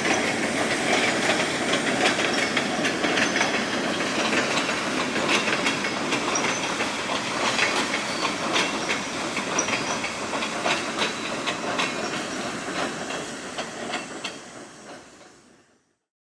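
Freight train rolling past, its car wheels clacking over rail joints with many short clicks and a steady rumble; the sound fades out near the end.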